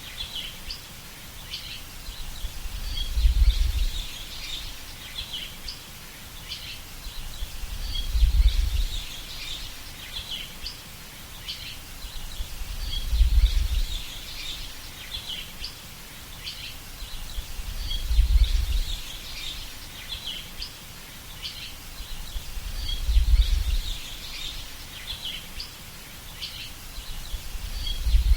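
Many small birds chirping and twittering continuously, over a deep low rumble that swells and fades about every five seconds.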